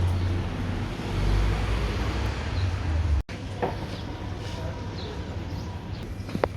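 A low rumble like passing road traffic, which cuts off abruptly a little after three seconds. Then a quieter, even background with two short clinks, the second near the end.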